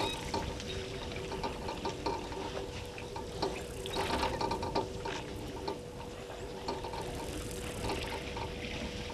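Water pouring, sloshing and trickling with many small clicks and knocks, typical of an elephant herd drinking and spraying water at a waterhole. A steady faint hum runs underneath.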